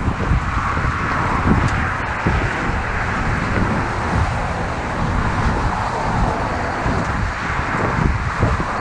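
Wind buffeting the microphone over the steady rush of car traffic passing on a highway.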